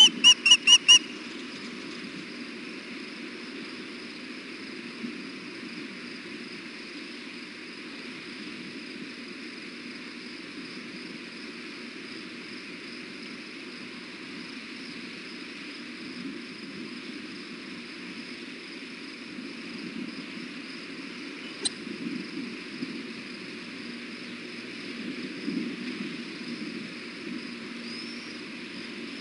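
Osprey giving a rapid series of high, repeated chirping calls that stops about a second in. After that, only a steady low rumble and hiss of outdoor background noise.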